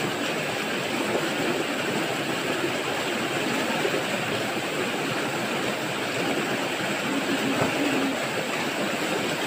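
Fast-flowing river water rushing over rocks, a steady unbroken noise.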